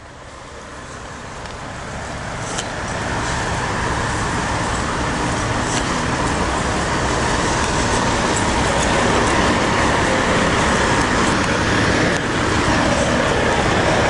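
Road traffic noise, swelling over the first few seconds and then holding steady.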